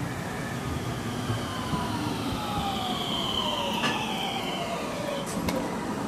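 521 series electric train braking to a stop, its traction motors whining in several tones that fall steadily in pitch as it slows. A few sharp clicks come near the end.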